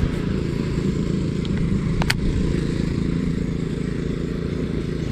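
Lawn mower's small petrol engine running steadily in the distance. A single sharp click sounds about two seconds in.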